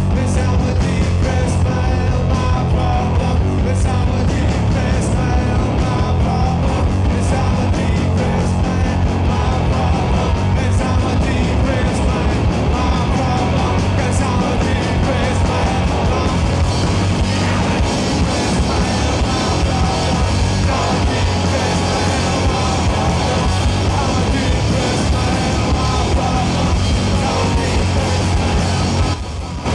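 Live rock band playing: a drum kit, electric guitar and loud sung, half-shouted vocals. The music drops out briefly just before the end.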